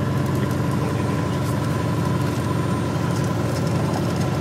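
Cessna 210's six-cylinder piston engine and propeller running steadily at low taxi power, heard from inside the cockpit.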